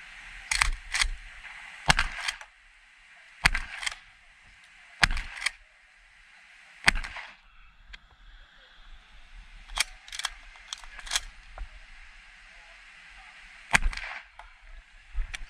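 Shotgun firing a string of loud shots at close range, some in quick pairs about a fifth to half a second apart and others singly, with a lull of about three seconds near the middle before firing resumes.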